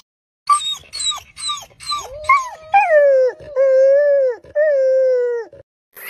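Deer calling: a quick run of short, squeaky calls, each dropping in pitch, then from about halfway three longer, whining bleats that hold a steady pitch and fall away at the end.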